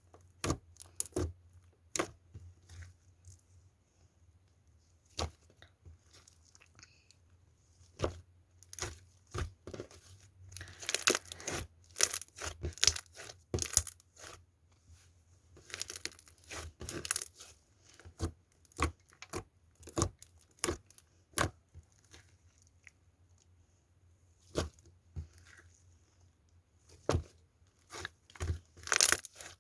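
Orange slime being pressed, stretched and squished by hand, giving irregular sharp sticky pops and clicks that bunch into quick runs now and then.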